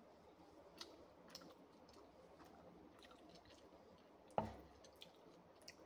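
Faint eating sounds: soft chewing and small wet mouth clicks, with one sharp thump about four seconds in.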